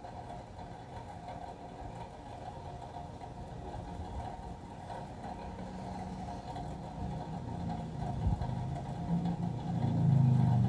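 A vehicle engine running steadily, growing louder over the last couple of seconds.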